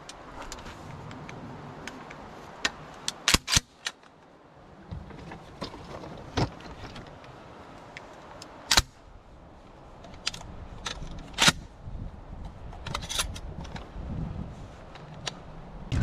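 Handling noise from a pump-action shotgun and gear: irregular sharp metallic clicks and knocks, a few of them loud (a close pair about three seconds in, and single ones near nine and eleven seconds in), over a low rumble of movement.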